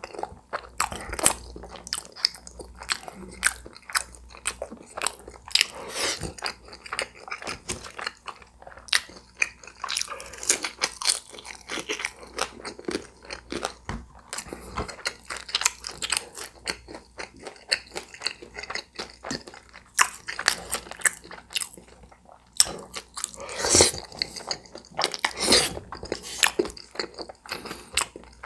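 A person chewing and crunching food close to the microphone, with many short, sharp crunches throughout.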